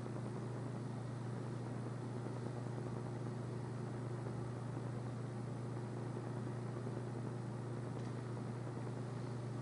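Steady low hum with an even hiss and no distinct events: the room tone of a quiet church.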